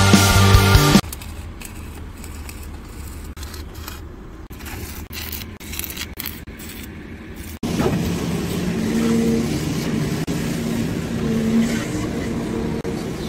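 A music sting ends about a second in, followed by low steady site noise. About eight seconds in, a hydraulic excavator's diesel engine comes in, running steadily at an even pitch.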